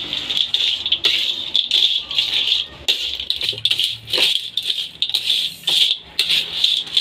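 Metal spatula stirring crispy fried anchovies through thick chilli sambal in an aluminium wok: a dry rattling scrape with each stroke, repeating about one to two times a second.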